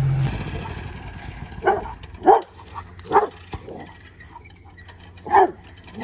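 A dog barking: a few short barks close together, then a pause and one more bark near the end.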